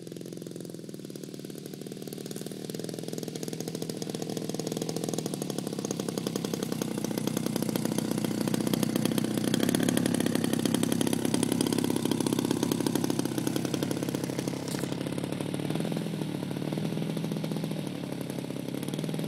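Engine of a radio-controlled scale P-51 Mustang model running at idle as the plane taxis on grass. It grows louder as the plane comes close, about halfway through, then fades as it rolls away.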